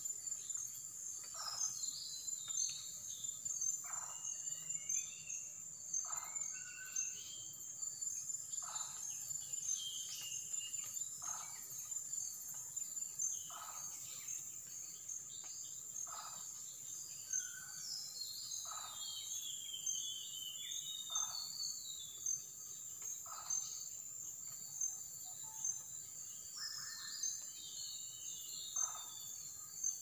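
Tropical forest ambience: a steady high insect trill with a fine pulsing beat, a short call repeated about every two and a half seconds, and scattered higher bird chirps.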